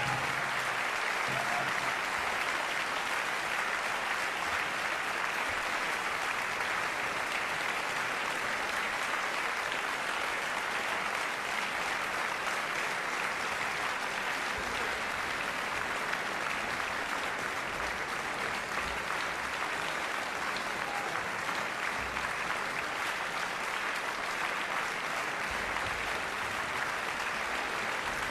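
A large concert-hall audience applauding steadily, a dense, even clapping that neither builds nor fades.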